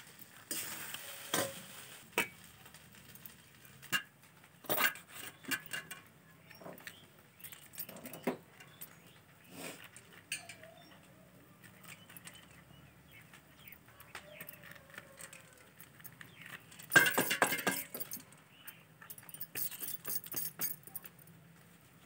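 Kitchen knife clinking and scraping against a steel plate while the seed cores are cut out of green bell peppers. Scattered single clinks, with a busier run of scraping about three quarters of the way through.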